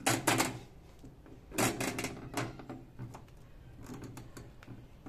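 Quick runs of sharp mechanical clicks, one at the start and another about two seconds in, over a steady low hum from an Edesa front-loading washing machine. It stands with its drum still, as its refill is not working.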